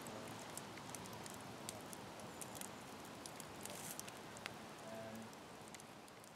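Campfire of logs and oak branches crackling, with scattered sharp snaps and pops over a soft hiss, fading out near the end.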